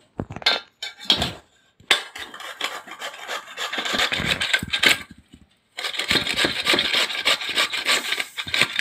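Peeled raw cassava root being grated on a flat stainless-steel hand grater: quick rasping strokes, a few separate ones at first, then fast and continuous, with a brief pause a little past halfway.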